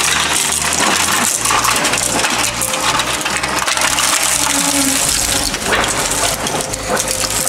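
Twin-shaft industrial shredder crunching and tearing apart an electronic unit with a metal chassis and circuit boards: a dense, continuous crackle of breaking metal and plastic with fragments clinking and rattling between the cutters.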